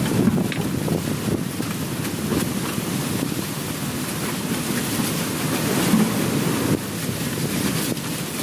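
Wind buffeting the microphone: a steady, uneven low rush with no speech over it.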